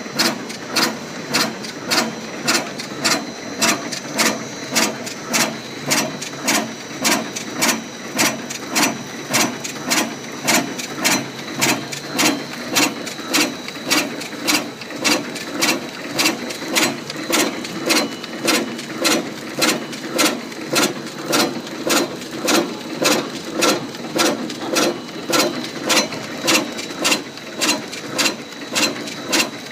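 Automatic putty packing machine for keyboard-cleaning gel running steadily. It makes an even mechanical clatter with a sharp knock about every two-thirds of a second, over a continuous running noise and a faint high whine.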